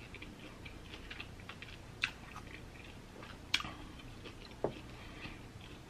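A person chewing broiled lobster tail meat: faint wet mouth sounds with three sharp clicks, about two, three and a half and four and a half seconds in.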